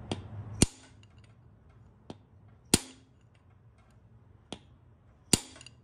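Hammer blows on a steel socket extension used as a drift, pressing a plug into a bore in a Nissan VG30DE engine block. There are three hard metallic strikes about two and a half seconds apart, each with a lighter tap just before it. The plug needs to be pressed in rather than dropping in.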